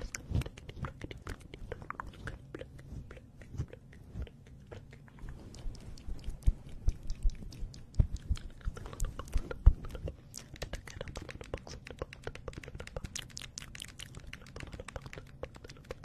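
Fingers and plastic markers scratching, plucking and tapping at a fluffy microphone cover right against the mic: a dense crackle of small clicks with soft thumps, busiest between about six and ten seconds in.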